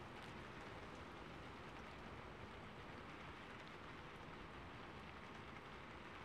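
Faint, steady noise like a low hiss, with no distinct sounds standing out.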